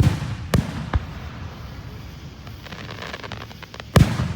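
Fireworks bursting: a loud bang at the start, two more within the first second, a spell of fast crackling about three seconds in, then another loud bang near the end.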